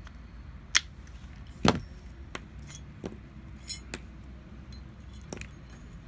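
Glock 17 pistol parts being handled and taken apart by hand: a string of sharp clicks and clacks of the slide and small metal parts, about eight in all, the loudest knock about a second and a half in, over a low steady hum.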